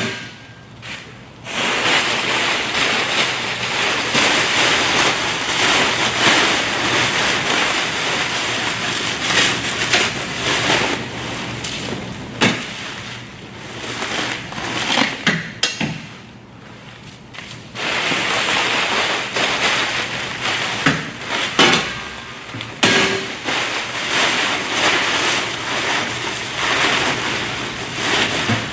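Plastic stretch wrap crinkling and rustling as it is packed and pressed down inside a hand-operated plastic baler, with a few sharp knocks from the baler along the way.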